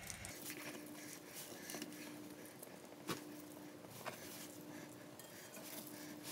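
Faint handling sounds as a stuffed fish fillet is folded up by hand on aluminium foil: a few small clicks and soft rustles over a faint hum that comes and goes.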